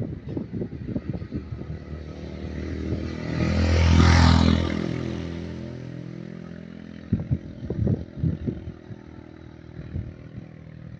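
A motor vehicle passing close by, its engine swelling to a peak about four seconds in and fading away over the next two seconds.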